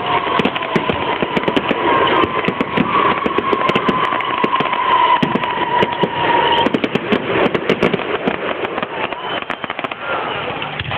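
Fireworks going off: a dense run of crackles and bangs. Under them, a long high whistle slowly drops in pitch and stops about two-thirds of the way through.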